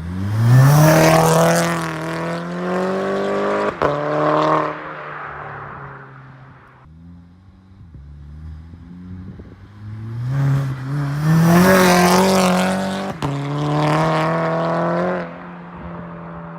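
Volkswagen Mk6 Golf GTI 2.0-litre turbo four-cylinder revved twice through a Beluga Racing cat-back and a catless, resonator-free downpipe. Each time the revs climb quickly, hang high for a few seconds, then drop back to idle.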